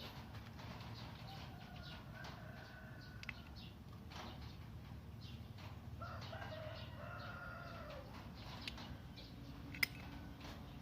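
A rooster crowing: one long, curving call about six seconds in, with fainter calls earlier, over a steady low hum. A single sharp click near the end.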